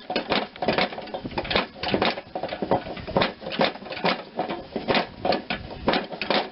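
Repeated, irregular metal-on-metal knocks and clanks, about two to three a second, from hand tools being used to force a stuck pulley off a worn mower-deck spindle.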